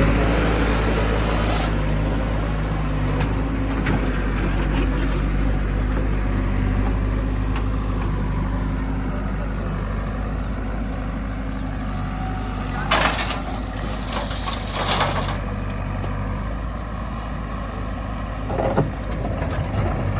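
Heavy diesel machinery running steadily at a low, even engine note, with a few short noisy bursts about two-thirds of the way through.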